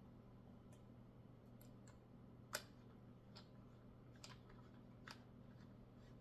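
Scattered light clicks and taps of small parts being handled during assembly, about one every second, the sharpest about two and a half seconds in, over a faint steady low hum.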